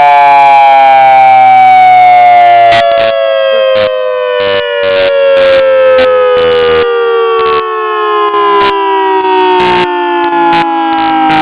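Federal Signal EOWS 612 electronic outdoor warning siren winding down, its multi-tone wail falling steadily in pitch. From about three seconds in, irregular sharp crackles break through it.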